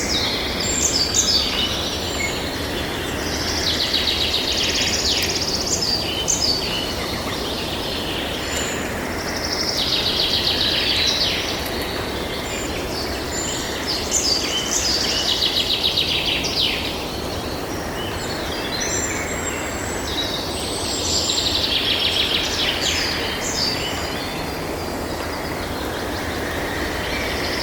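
Songbirds singing in bursts of rapid high chirps and trills that recur every few seconds, over a steady background of low outdoor noise.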